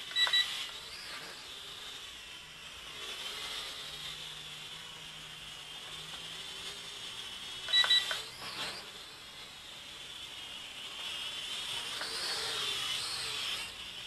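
JJRC H31 toy quadcopter's propellers running with a high whine that wavers as it flies, swelling near the end. Twice, right at the start and about eight seconds in, a short double electronic beep.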